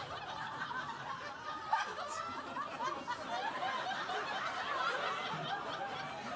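Audience laughing, many voices overlapping in chuckles and laughs.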